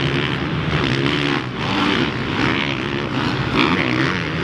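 Dirt bike engines racing on a motocross track, their revs rising and falling again and again as the riders shift and work the throttle.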